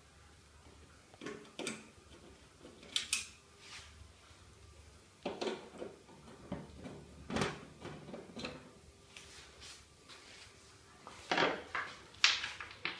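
The side cover of a Fronius inverter being worked loose and slid off its housing: a run of irregular knocks, scrapes and clatters, with the loudest clatters near the end.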